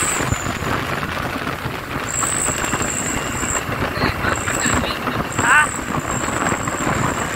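Street noise of a Mitsubishi Canter light truck rolling slowly past, its engine and tyres running under people's voices, with a thin high whine that comes and goes and a brief rising call about five seconds in.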